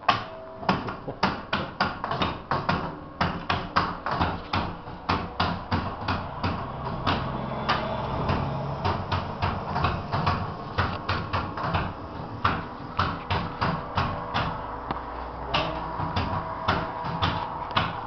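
Church bells played from a lever chime stand: the wooden levers clack and knock in quick succession, several strikes a second, while the bells ring out a tune beneath them.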